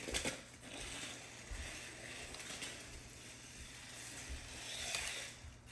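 Power Craze toy RC dune buggy's small electric motor and plastic gears whirring in high-speed mode, its wheels spinning on a slick floor, with a sharp knock just after the start.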